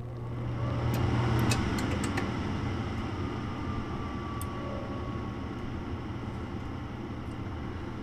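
A two-stage gas furnace's draft inducer motor starting up: its whoosh rises to a peak about a second in, then slowly eases as the inducer ramps down from high stage toward low stage, with a faint falling whine. Under it runs a low steady hum, and several sharp clicks come in the first two seconds.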